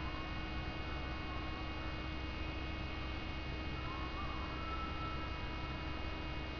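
Steady electrical hum over a constant hiss, with a few faint, short wavering tones coming and going.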